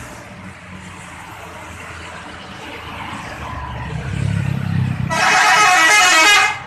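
Bus engine rumble growing louder as it nears, then about five seconds in a loud multi-tone telolet horn sounds its wavering chord for about a second and a half and cuts off sharply.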